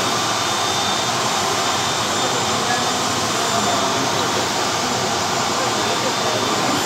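ATR 72-600 turboprop's turbine engine running steadily on the ground: a continuous rushing noise with a thin, high, steady whine on top.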